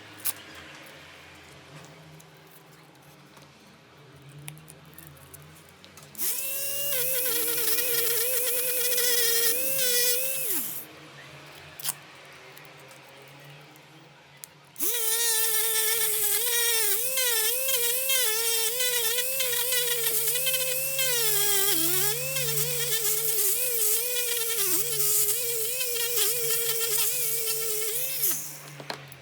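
A small high-speed electric power tool whining in two spells, a short one of about four seconds and then a long one of about fourteen seconds. Its pitch wavers up and down as it bears on the work.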